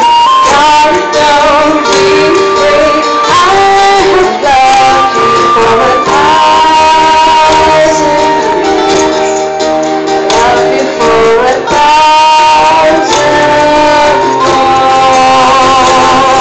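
Live band performing a slow pop ballad: a woman singing the lead over plucked strings, flute and bongo-style hand drums, with held sung notes and no break in the music.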